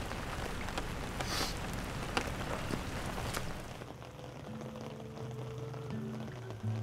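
Steady rain falling, with scattered drops ticking. About two-thirds of the way through the rain drops away and quiet background music with low held notes comes in.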